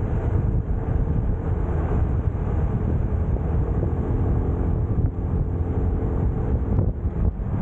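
Motorcycle riding at steady speed: wind rushing over the camera microphone with the bike's engine running underneath, a steady low rumble.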